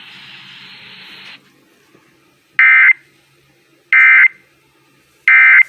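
Emergency Alert System end-of-message data bursts: three short, loud digital warbles about a second and a half apart, the SAME code that signals the close of the spoken alert. Faint radio hiss comes before them.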